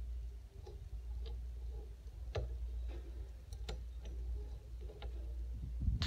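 Light, irregular clicks, about one a second, as the dial of a cutaway safe combination lock is turned by hand and its wheel pack turns inside, over a steady low hum.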